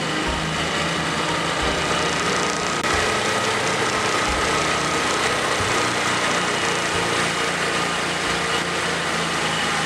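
Small vehicle engine running steadily at an even speed during a ride.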